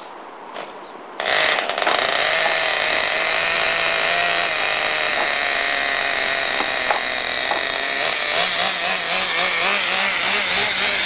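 A radio-controlled truck's small two-stroke engine starts up abruptly and runs at a high idle, its pitch rising and falling in the last few seconds as it is revved lightly.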